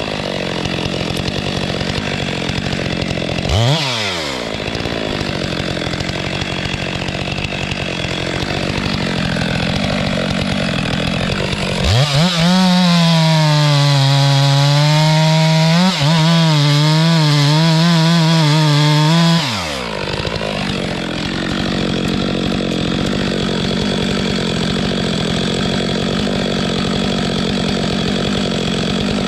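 Two-stroke chainsaw running at low revs, blipped once about four seconds in, then held at full throttle for about seven seconds with its pitch wavering as it cuts wood, before dropping back to idle.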